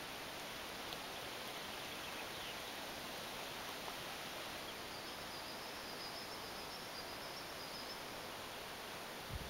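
Outdoor lakeside ambience: a steady hiss of wind and rustling. For a few seconds near the middle a faint, high, wavering bird call can be heard.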